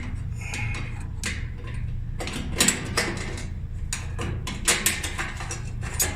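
Metal clicks and clanks of dryer parts and screws being handled and fitted during reassembly, scattered irregularly, over a steady low hum.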